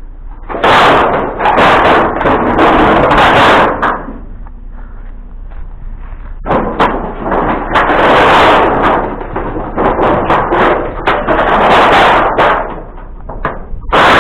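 Loud rattling clatter with repeated knocks and thumps, in two long stretches of several seconds each with a quieter gap between them.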